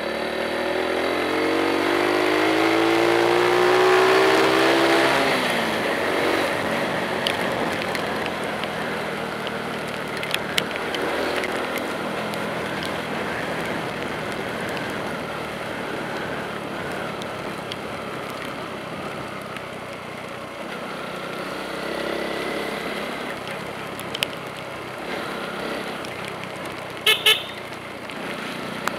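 A vehicle engine revs up with a rising pitch over the first few seconds, then gives way to steady road noise from tyres on the wet road. Near the end a vehicle horn toots twice in quick succession.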